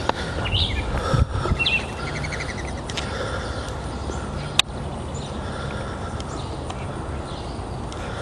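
Birds chirping a few times in the first two seconds over a low steady rumble, with one sharp click a little past halfway.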